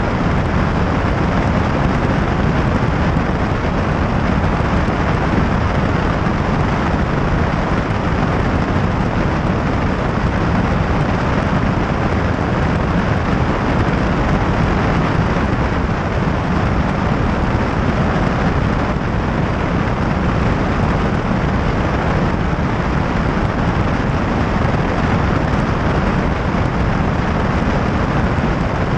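Light high-wing airplane in flight: engine and propeller running steadily under a heavy rush of wind on the microphone. Level and pitch stay constant throughout.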